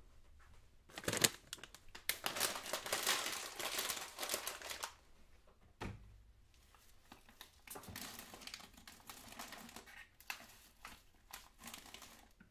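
Crinkling and rustling of wrapping being handled. A dense stretch runs from about one to five seconds in, with a sharp click near six seconds, followed by lighter, scattered crinkling.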